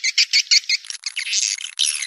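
Swiftlet call-sound track of the kind played to lure swiftlets to nest: rapid, evenly spaced high chirps, about six a second, that turn about a second in into a denser, continuous twitter.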